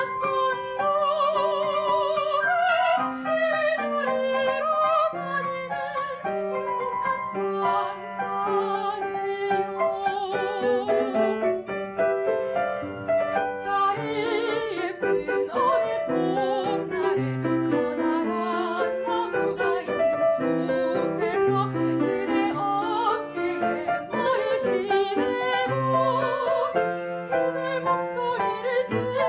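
Background music: a soprano singing in an operatic style with wide vibrato over piano accompaniment.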